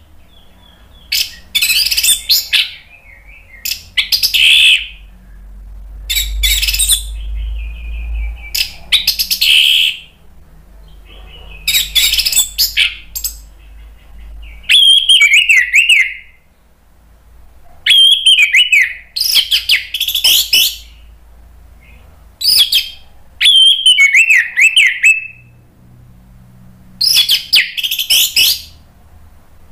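Orange-headed thrush (anis merah) in full song: a dozen or so loud phrases of quick warbling and whistled trills, each a second or two long, with short pauses between.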